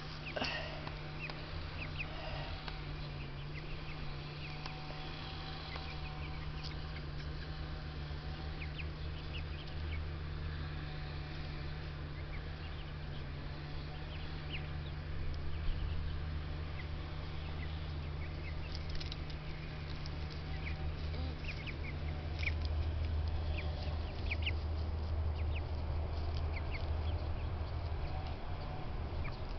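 Ducks quacking now and then, with many short high chirps from small birds, over a steady low hum.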